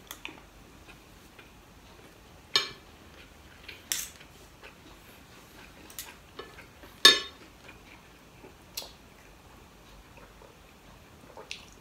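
Metal spoon and fork clinking and scraping against a ceramic plate while eating: a handful of sharp, separate clinks a second or two apart, the loudest about seven seconds in.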